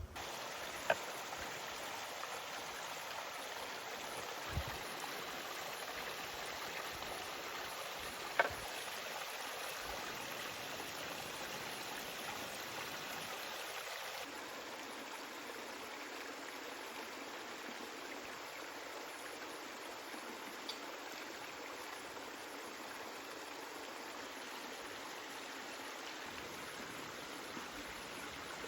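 Steady rush of flowing water, like a stream, with a few sharp clicks in the first ten seconds and a slight drop in level about halfway through.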